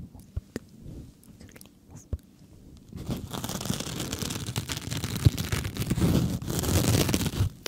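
Sponge squeezed and crushed right at the microphone, a dense crackling squish that starts about three seconds in and runs for about four and a half seconds. A few soft, sharp clicks come before it.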